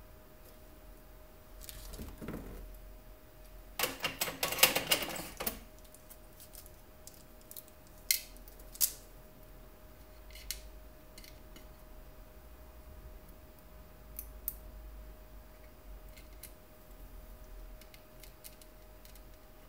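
Small hard clicks and taps of hand tools and electronic parts being handled on a workbench during circuit-board repair, with a short run of rattling clicks about four seconds in and a few single sharp clicks after it.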